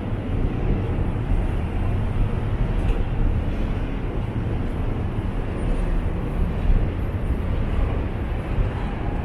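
Steady low rumble of city street ambience, mostly traffic noise.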